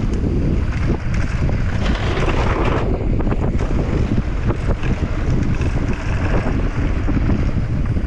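Wind rushing over the microphone of a camera on a mountain bike riding fast downhill on a dirt trail, with the tyres crunching over dirt and the bike rattling and knocking over bumps.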